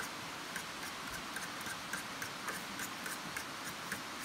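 A fork beating egg mixture in a bowl, its tines clicking lightly and fairly evenly against the bowl about three or four times a second.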